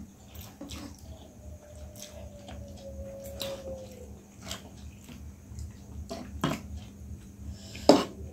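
Close-up eating sounds of noodles: slurping, chewing and wet mouth smacks, with cutlery clicking against ceramic plates. A louder sharp click comes near the end, over a low steady hum.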